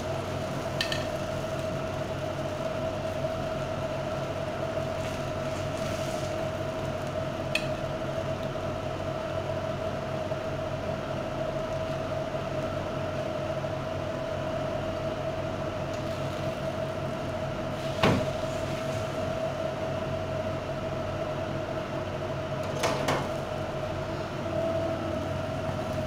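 Steady appliance hum with one constant tone, from the open countertop oven, broken by a few sharp clinks of metal tongs against the baking tray and plate, the loudest about two thirds of the way through.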